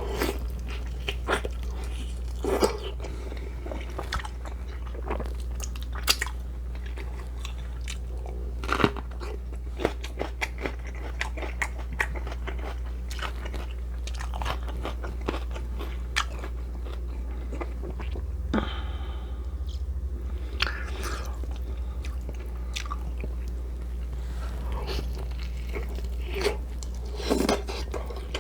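Close-up eating sounds: a person biting into and chewing crunchy food, with many short crunches and wet mouth clicks, over a steady low hum.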